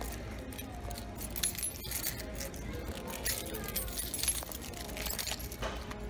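Rapid metallic jingling and clicking rattle, with music playing underneath.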